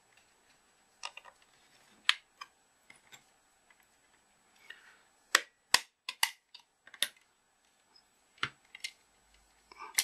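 Sharp, irregular plastic clicks and snaps as a utility knife blade pries along the seam of a TV remote control's plastic case and its clips let go. The loudest snaps come in the second half, just before the case comes apart.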